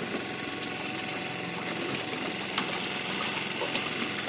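A small engine running steadily at idle, with a few faint sharp ticks over it.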